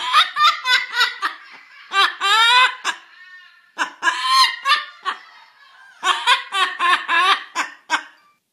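Amazon parrot mimicking human laughter: several bouts of rapid ha-ha-ha laughing with short pauses between them.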